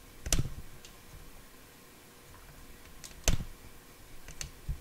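Sharp mechanical clicks from equipment being handled on the bench: two loud ones about three seconds apart, then a few fainter ones near the end, over a faint steady hum.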